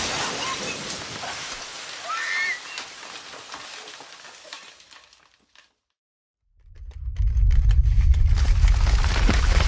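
Earthquake sound effects: a crackling, rustling rumble fades away to silence about five and a half seconds in, and about a second later the next effect starts with a loud, deep rumble and crackling that swells up within half a second.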